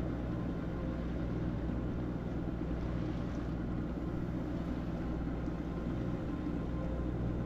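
Sailing yacht's inboard engine running steadily at low revs, a constant low drone.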